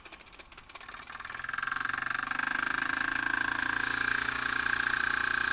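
Bing toy steam engine starting up under steam: quick exhaust beats run together into a fast, steady chuffing buzz with steam hissing, growing louder over the first two seconds and then running evenly.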